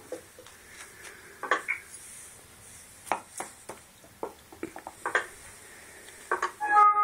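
Binger Clinger stand with its bottle knocking and clinking in irregular bumps as a dog noses it and it wobbles back upright. A short ringing tone near the end.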